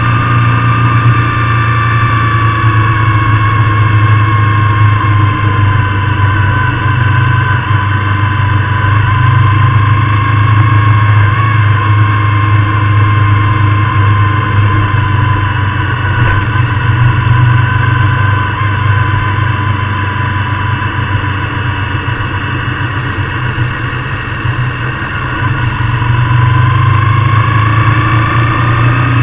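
Motorcycle engine running at road speed with wind noise; the engine's pitch dips slightly about six seconds in and climbs again near the end.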